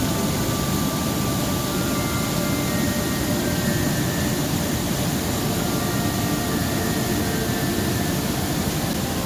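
Steady rush of fast-flowing river water and falls, an even, unbroken noise.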